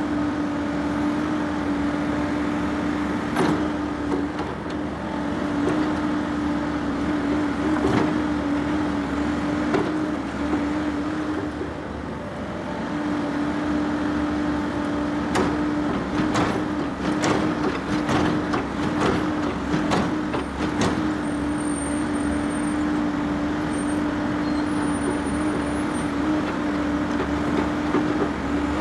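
Heavy vehicle running with a steady droning hum, broken by scattered sharp knocks and clunks.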